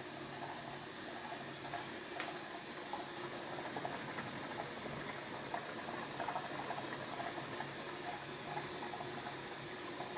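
Beko washing machine running, with water sloshing in the drum and faint, short, irregular squeaks over it: a squeak that appeared after the drive belt was replaced. A single sharp click about two seconds in.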